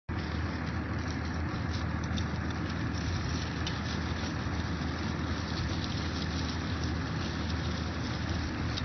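Steady low hum of an engine idling, with a few faint clicks.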